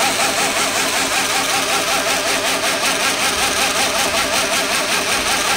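2x72 belt grinder running at about 30% speed on its 2 hp AC motor and variable-frequency drive: a steady hum and belt noise with a whine that wavers up and down in a regular rhythm. The machine is vibrating quite a bit, which the owner suspects comes from the motor or the VFD, with part of it possibly from the belt.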